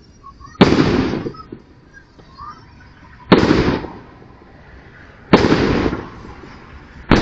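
Aerial firework shells bursting overhead: four sharp booms about two seconds apart, each trailing off over about half a second.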